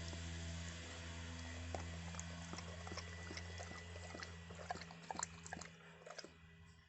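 A dog's mouth sounds between coughing fits: small irregular clicks and wet smacks, thicker in the second half, over a steady low hum that stops near the end.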